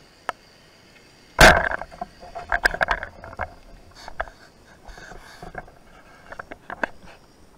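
Rubber-band speargun firing underwater: a sudden loud crack about a second and a half in, followed by a quick run of sharp clicks and knocks, then scattered smaller clicks.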